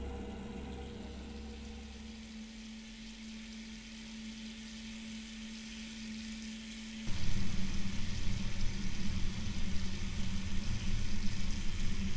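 Horror film sound design: a steady low hum with faint hiss, then about seven seconds in a sudden, louder crackling, sizzling noise cuts in over the hum and carries on.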